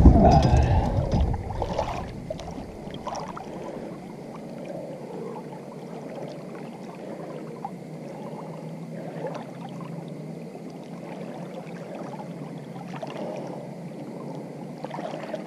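Water sloshing and trickling against the side of a boat as a lake sturgeon is held in the river for release. It is louder for the first couple of seconds, then settles into a quieter, steady lapping and trickling.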